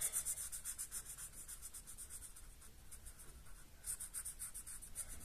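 Felt-tip pen scratching rapidly back and forth on card while colouring in, many quick strokes a second, fainter through the middle and stronger again about four seconds in.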